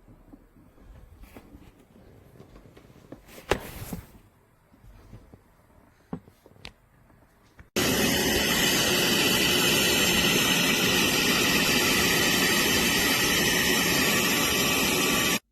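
BISSELL Little Green portable carpet and upholstery cleaner's motor running steadily, starting abruptly about halfway through and cutting off sharply near the end. Before it come a few quiet handling clicks and knocks.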